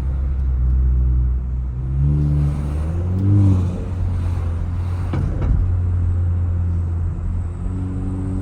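Mk7 Volkswagen Jetta's turbocharged engine with an aftermarket intake, heard from inside the cabin while driving. It revs up and falls back about two to three seconds in, then holds a steady low drone. There is a short rush of air about five seconds in.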